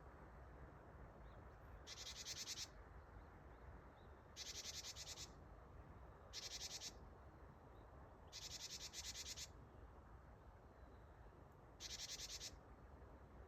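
Japanese tit giving its buzzy 'jijiji' call five times, each a harsh rapid rattle under a second long, about two seconds apart. This call is said to mean 'gather' in tit language, a call to bring other birds over.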